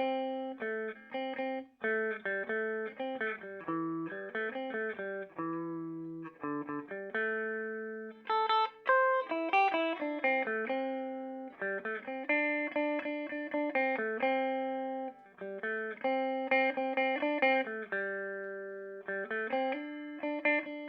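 Electric guitar played clean through a Peavey Bandit 112 combo amp's clean channel, modern voicing, high-gain input. Picked chords and single notes ring out and decay in short phrases, with brief gaps between them.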